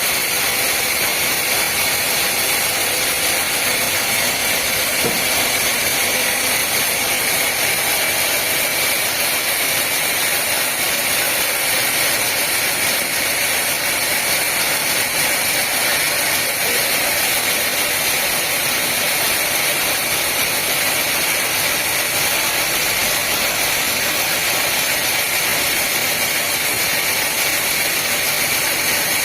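Woodworking machinery running steadily under load, an even, hissing mechanical noise with a faint steady whine.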